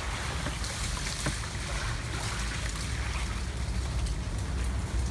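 Wind rumbling and buffeting on the microphone over a steady rustling hiss, with a few faint clicks about a second in.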